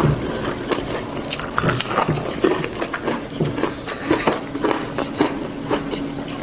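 Close-miked chewing of breaded fried chicken: irregular wet mouth clicks and crunches of the fried crust.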